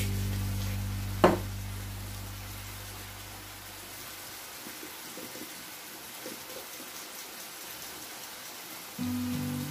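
Background music fading out, a single sharp click about a second in, then cherry tomatoes sizzling faintly in a frying pan; the music comes back near the end.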